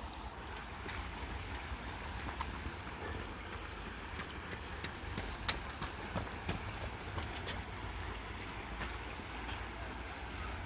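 Footsteps of a jogger running past: a string of light, irregular steps, most frequent in the middle, over a steady low rumble.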